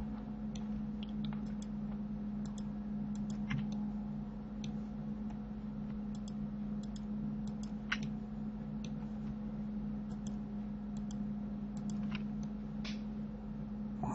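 Scattered, irregular clicks of a computer mouse and keyboard being worked, over a steady low electrical hum.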